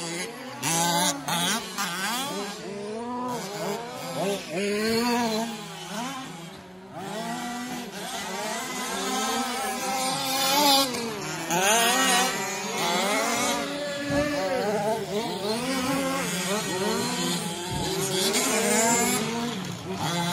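Several 1/5-scale RC racing trucks' small two-stroke petrol engines running together, revving up and falling off again and again as the trucks accelerate and brake around the dirt track.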